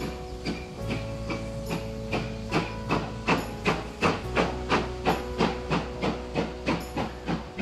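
Steam locomotive working away with evenly spaced exhaust chuffs, about two to three a second, growing stronger after about two seconds in, with a hiss of steam.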